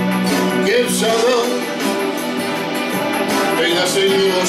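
Man singing a Polish song while playing an acoustic guitar, his voice rising and falling over the held chords.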